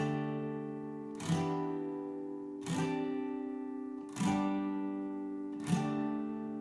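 Background music: slow acoustic guitar, a chord strummed about every second and a half and left to ring out.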